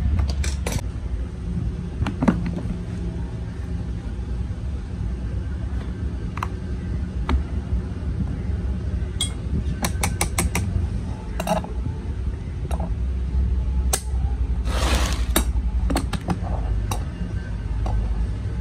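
Scattered sharp metallic clicks and clinks of pliers against the lead strap lugs and plastic case of an opened lead-acid battery, over a steady low background rumble. A short scraping rasp about fifteen seconds in.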